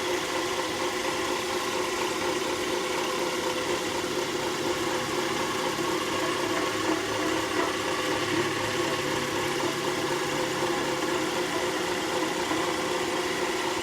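Craftsman 150 drill press with a Vari-Slow speed attachment running steadily at a fast speed setting, an even motor and drive whir with several steady tones.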